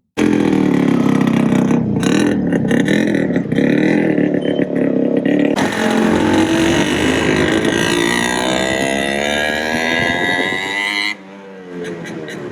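Yamaha RX100's two-stroke single-cylinder engine revving, its pitch rising and falling. It drops sharply quieter about eleven seconds in and keeps running.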